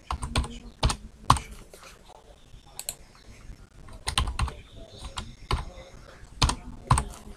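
Computer keyboard keys clacking as a long number is typed, the keystrokes coming in short irregular bursts with brief pauses between them.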